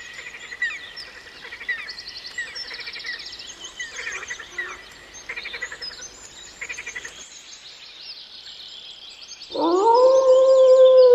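Small birds chirping and trilling. After a short break, a loud, long howl starts near the end, rising at first and then holding one steady pitch.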